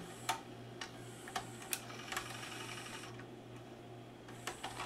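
Magnavox ZV427MG9 DVD-VCR's tape mechanism going through stop and eject: faint clicks from the loading gears and levers, with a thin motor whir for about a second midway as the tape is unloaded.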